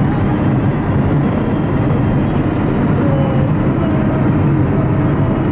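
Car driving at highway speed, heard from inside the cabin: a steady rumble of engine and tyre noise.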